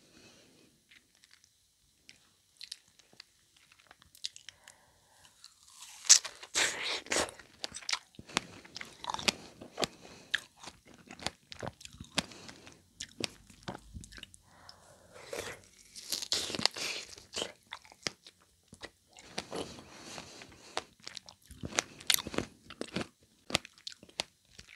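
Close-miked biting and chewing of a strawberry wrapped in edible gold leaf. Faint mouth clicks come first, then from about six seconds in there are repeated bouts of crisp bite and chew sounds.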